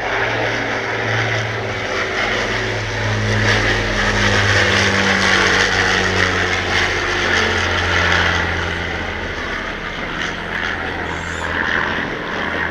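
Avro Lancaster's four Rolls-Royce Merlin V12 engines running in a low fly-past, a deep steady drone. It grows louder through the middle as the bomber passes, and its pitch drops slightly as it moves away.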